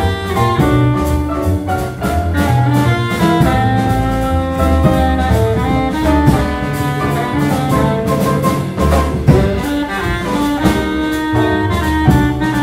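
Small jazz group playing: a baritone saxophone carrying the melody over a double bass line, with light cymbal strokes keeping time.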